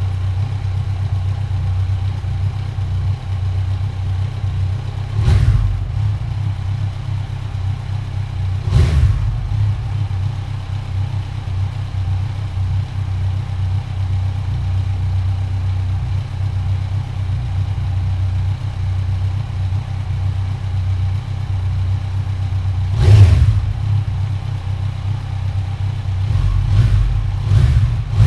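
2015 Kawasaki Z1000's inline-four running on its stock exhaust, idling steadily and revved in short throttle blips: twice in the first ten seconds, once more a little past the twenty-second mark, and a quick series near the end.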